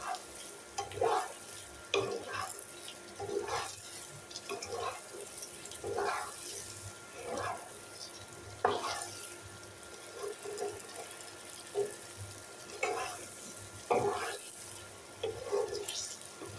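Wooden spatula stirring hog plums through a thick, oily coconut-milk masala in a nonstick wok, a wet scraping swish with each stroke, about one a second or so, over a soft sizzle. This is the masala frying down until the oil separates.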